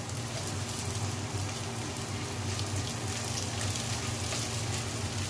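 Chopped onion, garlic and ginger sizzling in hot oil in a pot as they are sautéed and stirred: a steady, fine crackling hiss.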